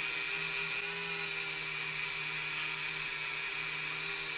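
Handheld rotary tool spinning a small wire wheel against a diecast toy car body, a steady high whine. The wire wheel is cleaning the body with polish ahead of zinc plating.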